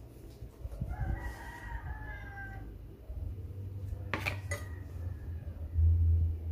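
A rooster crows once in the background, one long call starting about a second in. Over a steady low hum, with a short sharp clatter about four seconds in.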